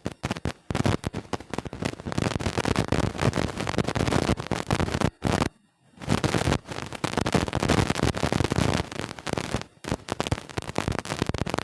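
Knife cutting ripe bananas into pieces on a board: a dense clatter of rapid taps and knocks, with two short breaks.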